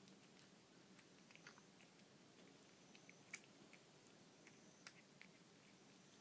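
Faint wet clicks and smacks of a cat chewing and lapping soupy tuna wet food from a saucer, with a couple of sharper clicks a little past the middle.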